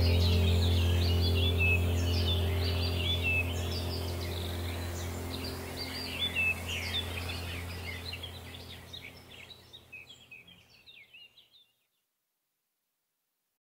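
Many birds chirping over a low steady hum; the whole sound fades away and stops shortly before the end.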